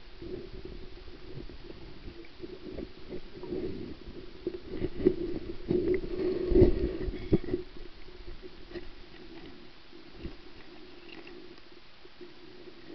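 Muffled underwater knocks and thumps of the camera being handled and bumped, bunched in the middle with the loudest about six and a half seconds in, over a steady low hum.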